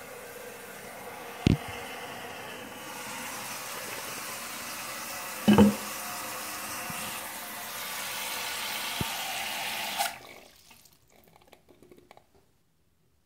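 Toilet tank refilling after a flush: the fill valve hisses steadily as water runs in, then shuts off about ten seconds in. Two sharp knocks sound over the running water, at about a second and a half and at five and a half seconds.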